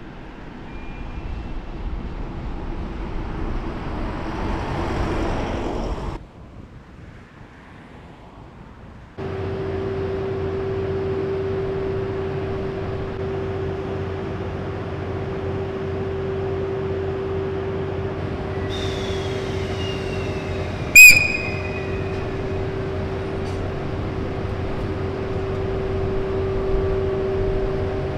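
Cassiopeia sleeper train running along the line, its noise building as it approaches. Then an EF81 electric locomotive standing at a station with a steady, even hum. About 21 seconds in, one sudden, very loud short high-pitched tone cuts through the hum.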